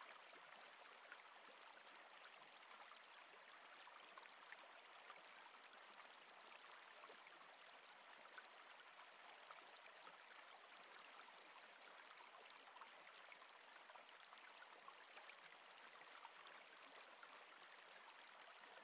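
Faint, steady flow of a river over rocks, with small splashes and trickles throughout.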